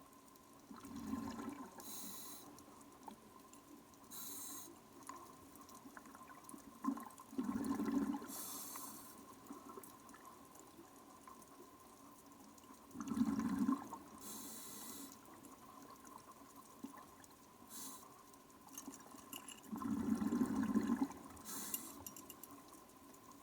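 Scuba diver breathing underwater through a regulator: about four breath cycles, each a low burst of bubbles with short hissing bursts in between, over a faint steady whine.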